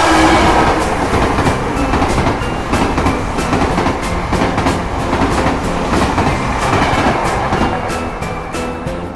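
A train running along the track with a dense rattling clatter, swelling at the start and again near the end. Faint background music plays underneath.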